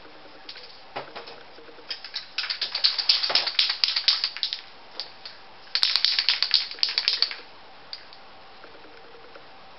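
Aerosol spray paint can being shaken, its mixing ball rattling in two bursts of rapid clicks, each a second or two long.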